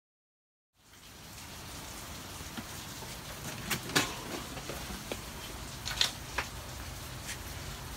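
After a second of silence, steady rain patter and hiss begin, with a few sharp knocks and clicks scattered through it, the loudest about halfway and again about three-quarters through.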